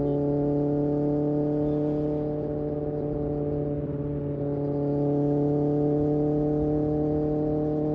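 Kawasaki Ninja ZX-6R's inline-four engine running at a steady engine speed while riding, its note holding an even pitch over low wind and road noise. It eases off slightly a few seconds in and picks back up about five seconds in.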